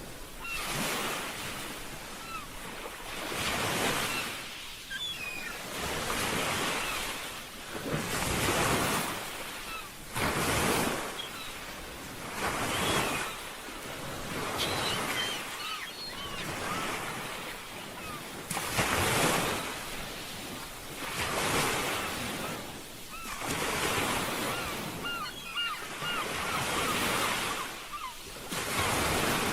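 Ocean waves breaking and washing in on a shore, a fresh swell of surf every two to three seconds.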